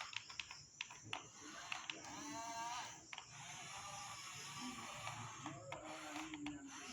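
RC model construction machines working: repeated sharp plastic clicks and rattles, with short wavering whines from small gear motors.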